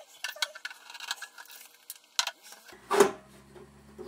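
Small clicks and rattles of computer hardware being handled, then a single loud knock about three seconds in, with a low hum starting just before it.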